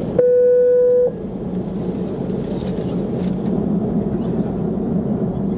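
Airliner cabin noise while taxiing: a steady rumble and hum from the engines and the rolling aircraft. A single loud, steady electronic beep lasting about a second sounds just after the start.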